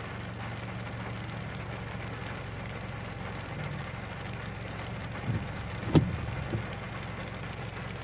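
Steady rain falling, with a low steady hum underneath. A few short knocks come a little past five seconds in, the sharpest and loudest about six seconds in.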